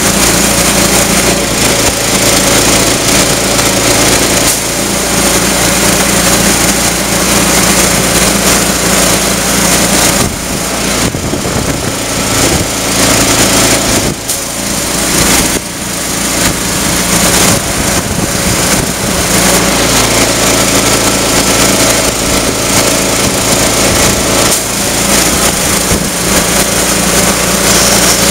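Engine-driven air compressor running steadily, with air rushing down the hose into a large tractor tire being inflated to seat its bead on the rim. The rushing air drops off briefly a few times midway.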